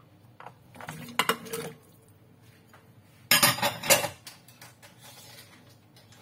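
Dishes clinking and knocking as coconut chunks are tipped from a ceramic bowl into a stainless steel stock pot. The sound comes in two bursts: a lighter clatter about half a second in, and a louder one around three seconds in.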